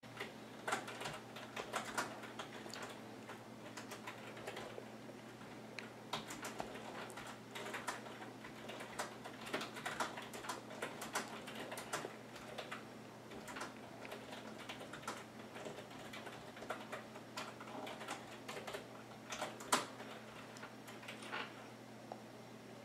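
Typing on a computer keyboard: uneven runs of keystroke clicks with short pauses between them, over a low steady hum.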